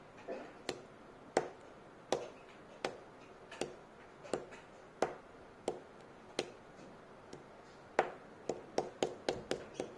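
A small plastic stamp marker tapped repeatedly onto a card circle, each stamp a short sharp click about every 0.7 s. Near the end the taps quicken to four or five a second.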